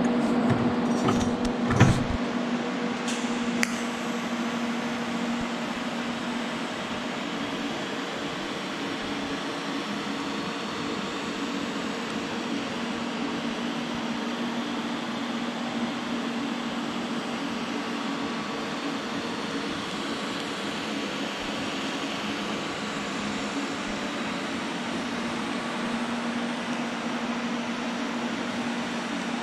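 A few metal clanks in the first two seconds, then TIG welding on a steel T4 turbo flange adapter: a steady hiss with an even hum from the arc and the Lincoln Square Wave TIG welder.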